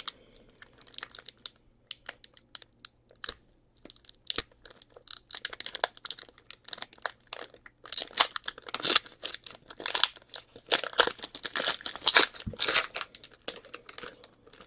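Foil wrapper of a football trading-card pack crinkling and tearing as it is opened by hand. The crackling is sparse at first and thickest through the second half.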